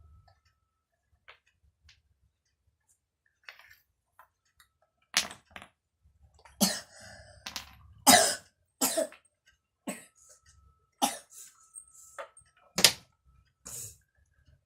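A child with a cold coughing in a run of about a dozen short coughs over some eight seconds, beginning about five seconds in.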